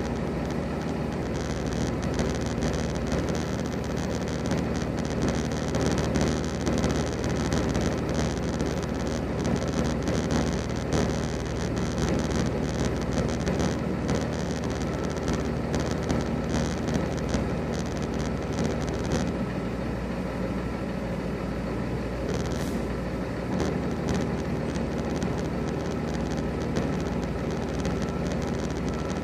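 Steady drone of idling diesel trucks and trailer refrigeration units, with a brief hiss a little over twenty seconds in.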